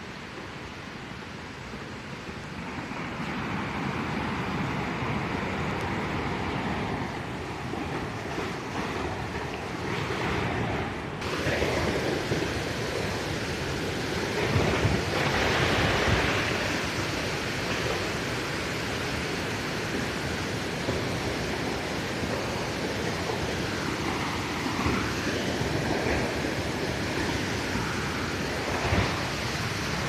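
Steady rushing noise of a waterfall, growing louder a couple of seconds in.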